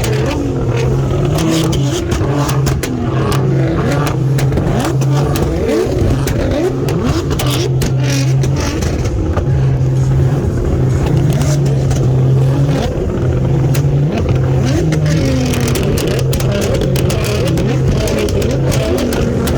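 Nissan GT-R R35's twin-turbo V6 engine running loudly, its note rising and falling with the revs, with frequent sharp crackles through it.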